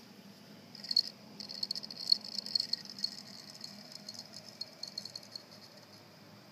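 MacBook Pro internal hard disk drive making an abnormal noise: an irregular run of rapid, high-pitched clicking and chattering that starts about a second in, is loudest early on and thins out before the end, over a faint steady hum.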